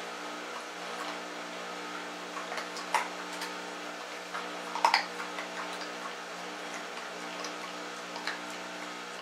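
A steady low hum with a few short clicks over it, the loudest about three and five seconds in; the hum stops suddenly at the end.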